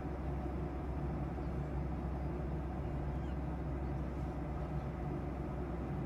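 Airliner cabin noise in cruise flight: a steady low rumble of the jet engines and the airflow, heard from inside the passenger cabin.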